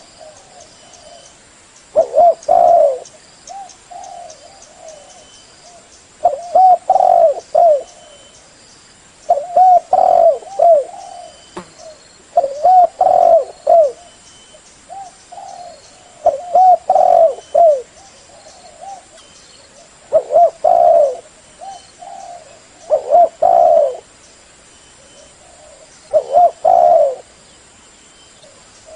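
Spotted dove (tekukur) cooing in repeated phrases of several coos, one phrase about every three to four seconds. This is the full, persistent calling that is used to lure other doves.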